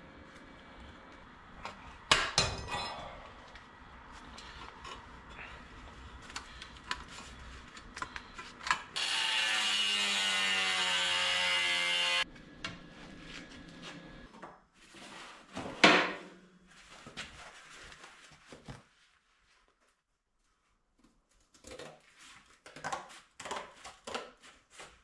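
Sheet-steel fabrication in a workshop: sharp metal clanks and light taps and handling of steel pieces. Partway through, a power tool runs steadily for about three seconds and cuts off suddenly.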